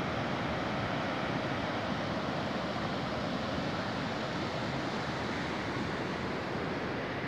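A river in flood rushing through rapids: a steady noise of churning water that does not change.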